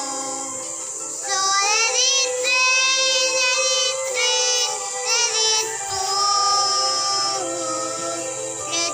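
Young girls singing a song, with held notes and pitch glides, over musical accompaniment.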